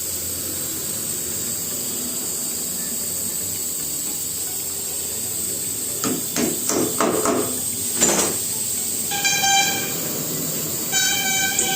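Tyre-shop workshop noise: a steady hiss, a few knocks and clatters about six to eight seconds in, then two buzzing beep-like tones near the end, the second one longer.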